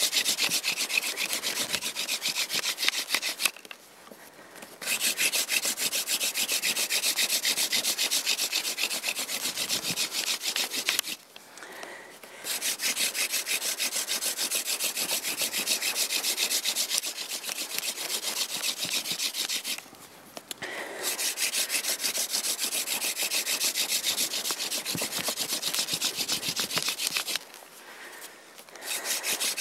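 A yucca hand-drill spindle spun fast between the palms, grinding into an eastern white cedar hearth board with a steady, rapid rubbing. The rubbing comes in runs of about seven seconds, with four short breaks as the hands go back to the top of the spindle. This is friction-fire drilling, building heat toward an ember.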